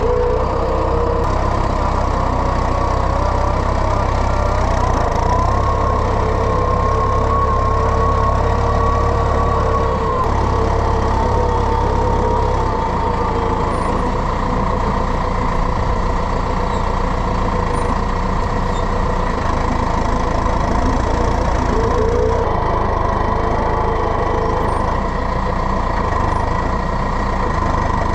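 Tractor engine running steadily under load, with a whine whose pitch rises about five seconds in and drops back around ten seconds in as the engine speed changes.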